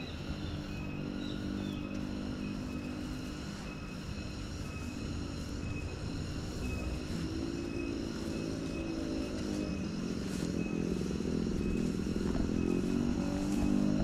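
Motorcycle engine running, its pitch wavering and rising and its sound growing louder through the second half.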